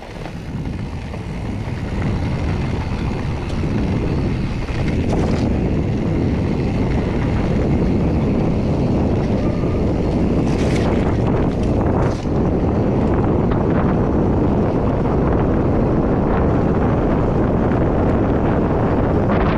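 Wind rushing over the microphone of a camera on a moving mountain bike rider, building over the first couple of seconds as the bike picks up speed and then steady, with a few brief knocks.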